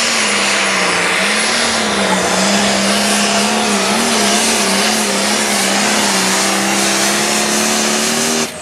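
International pro stock pulling tractor's turbocharged diesel engine running flat out under load as it drags the weight sled, its pitch wavering slightly, with a high turbo whistle above it. Near the end the throttle is chopped and the engine sound drops off sharply as the pull ends.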